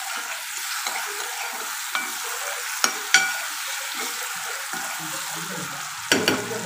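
Chopped tomatoes and green chilli paste sizzling in hot oil in a kadhai as the tomatoes soften, stirred with a metal spoon. The spoon clicks against the pan a few times, sharpest about three seconds in and again near the end.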